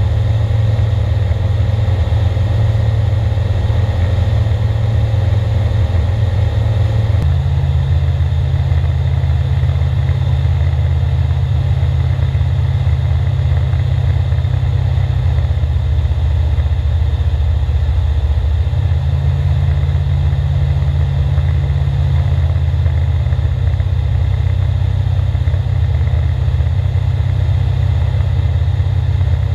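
Light aircraft's Rotax four-cylinder engine and propeller droning steadily at climb power, heard inside the cockpit. The pitch shifts once about seven seconds in and changes slightly again around two-thirds of the way through.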